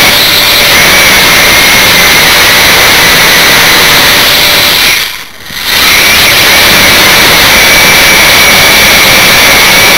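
Multirotor drone's electric motors and propellers running with a loud, steady whine over a rushing noise. The sound briefly drops away about halfway through, then comes back at the same level.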